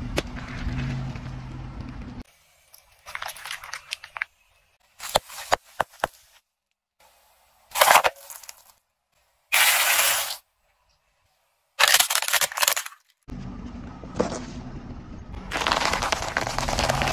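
A car tyre rolls slowly onto objects and crushes them one after another, giving a series of separate cracks, crunches and squashes with short silent gaps between them: a ball covered in water beads, candy-coated chocolates, and peanuts in the shell. A low engine rumble runs under the first crush and the last one.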